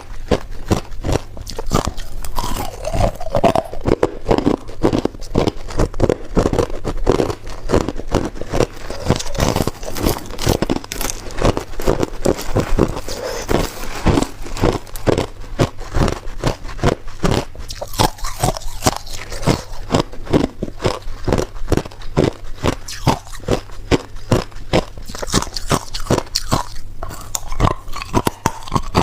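Ice being bitten and chewed: rapid, continuous crunching and cracking.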